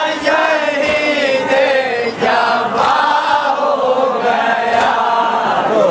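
A group of men chanting a nauha, a Shia lament, many voices on one sung melodic line.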